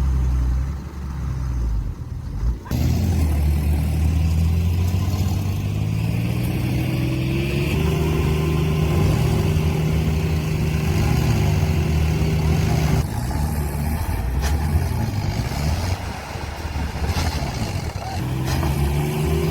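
Heavy machine's diesel engine working under load, its pitch rising and falling as it revs up and settles. The sound changes abruptly twice, about three and thirteen seconds in.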